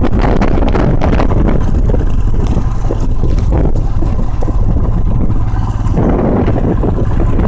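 Motorcycle engine running under way on a dirt track, with heavy wind buffeting on the microphone, loud and steady throughout.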